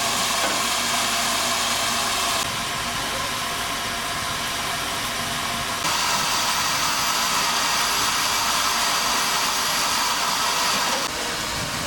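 Steam hissing steadily from a standing narrow-gauge steam locomotive, escaping around its cylinders and from beneath the frames. The hiss shifts abruptly in tone and strength a few times.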